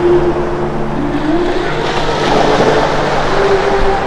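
Music: held low tones moving from note to note over a steady rushing noise.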